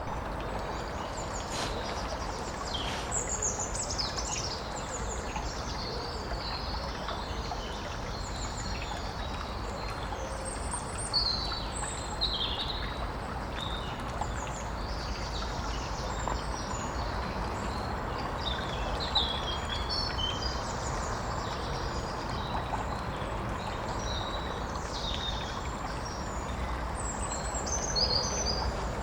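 Several small birds chirping and trilling in short, scattered phrases over a steady rush of flowing stream water.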